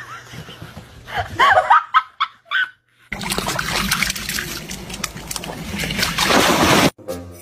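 Dog splashing through shallow water, a dense rush of splashing that grows louder toward the end and stops abruptly. It is preceded by a few short cries in the first half.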